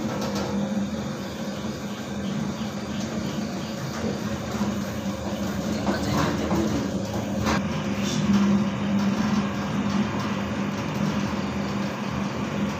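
Homemade stainless-steel dough mixer running with a steady motor hum while it kneads dough in its closed bowl, with a few short knocks about halfway through.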